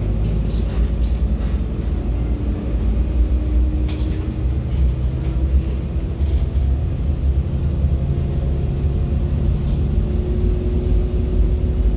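Inside a moving city bus: a steady low rumble of the engine and road, with an engine hum that drifts slowly in pitch and a few light rattles.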